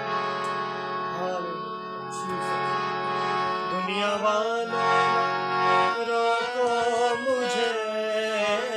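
Harmonium holding steady reed chords, with a man's voice singing a devotional melody over it from about four seconds in. A few sharp drum strokes from a dholak fall in the first half.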